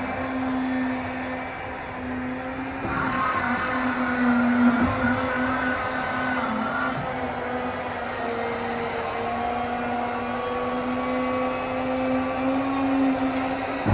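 Driveline of a hydrogen-powered excavator running on test: a steady machine hum with a high whine. A higher wavering whine comes in about three seconds in and fades out a few seconds later, and the tones shift in pitch as the load changes.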